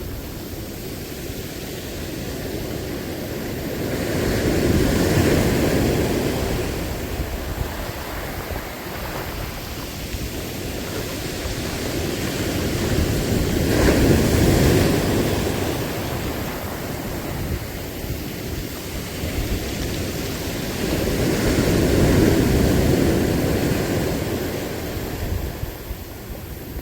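Sea waves surging in against the shore, three swells of wash about eight to nine seconds apart over a steady background of surf.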